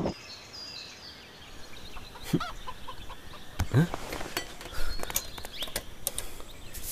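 Quiet morning ambience of birds: a few short clucking calls from chickens and faint chirping of small birds, with scattered light knocks and clicks.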